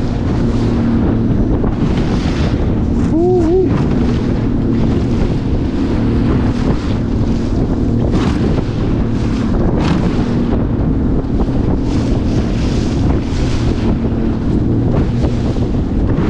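A boat engine runs steadily under load as the hull works through rough, deep-troughed waves, with repeated surges of rushing water and spray every second or two. Wind buffets the microphone throughout. A short, wavering two-note sound comes about three seconds in.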